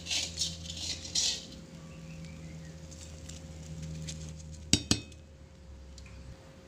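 Metal utensil scraping and clinking against a frying pan as fried chilies, shallots and shrimp paste are tipped out onto a stone mortar. There are a few scrapes in the first second and a half, then two sharp metallic clinks close together about five seconds in, over a steady low hum.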